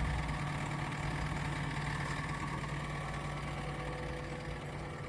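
A diesel engine idling steadily with an even low hum.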